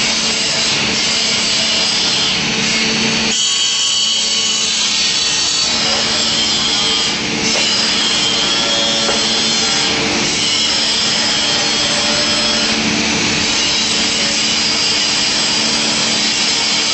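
Woodworking power machine running and cutting wood: a loud, steady hiss of the cut over a constant motor hum.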